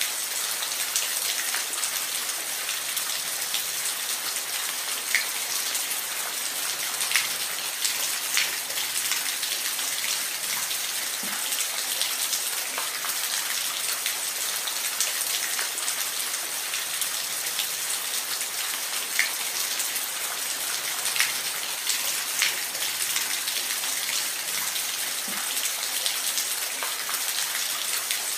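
Steady rain, a dense hiss with individual drops ticking sharply now and then on a hard surface.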